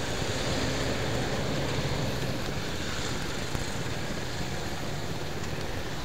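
Steady traffic noise while moving slowly past a large cargo truck on a rough road: a low engine rumble with road and tyre noise.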